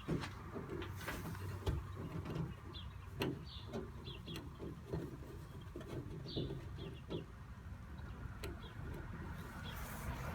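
Scattered light clicks, taps and scrapes of a copper wire and washer hose being handled and worked through the car's hood, over a steady low rumble, with a few short high chirps.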